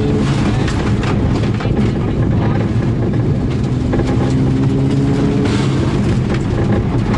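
Turbocharged rally car engine running hard at stage speed, its pitch rising and dropping with throttle and gear changes. Stones from the gravel stage rattle against the underbody throughout.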